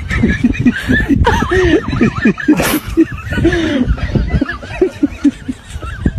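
People laughing and snickering in quick, short repeated bursts, with a brief burst of noise about two and a half seconds in.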